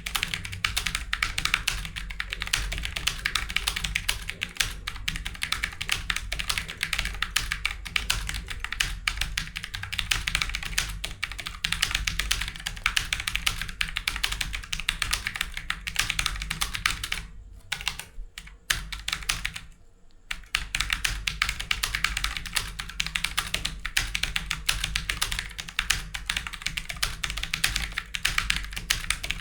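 Fast, continuous typing on a computer keyboard, the keystrokes running together in a dense patter. It breaks off briefly twice about two-thirds of the way through.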